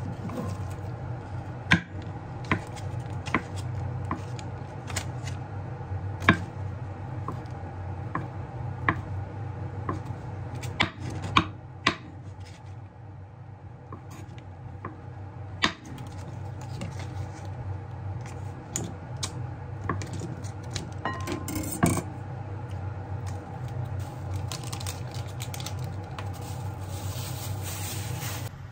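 Chef's knife slicing soft white-rind cheese on a wooden cutting board, with irregular sharp taps as the blade meets the board. Near the end plastic wrapping crinkles, all over a steady low hum.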